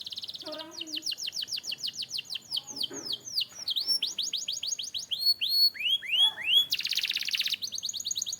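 Domestic canary singing a long, continuous song of fast trills, each run made of rapidly repeated downward-sweeping notes that change speed and pitch from run to run. Near the end it breaks into a dense, buzzy rolling trill before a last quick run.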